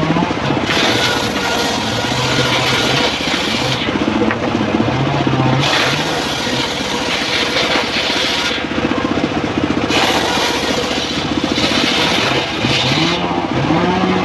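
Homemade engine-driven table circular saw ripping teak boards: the engine runs under the saw, its pitch dipping and recovering with the load, and the blade hisses through the wood in three cutting passes, one after another.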